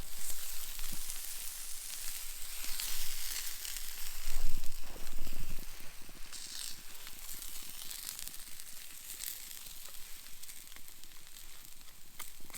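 Caveman steak sizzling directly on glowing campfire coals, a steady high hiss with light crackling. About four to six seconds in, louder knocking and scraping sounds come as the steak is worked out of the coals.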